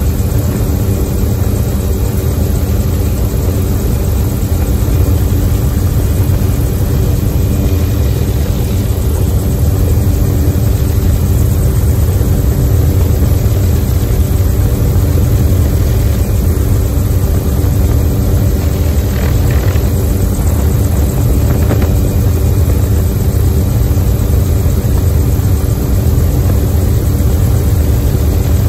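Helicopter in flight, heard from inside the cabin with the doors off: a loud, steady drone of rotor and engine with a deep rumble and wind rushing past the open doorway.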